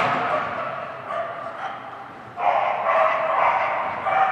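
Excited dog yapping and barking in a rapid, near-continuous string while it runs. The yapping fades after the first second and picks up again loudly just past halfway.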